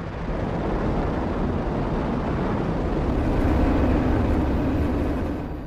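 Rocket engines at liftoff of a Delta IV Heavy: a deep, continuous rumbling noise that swells to its loudest three to four seconds in and eases off near the end.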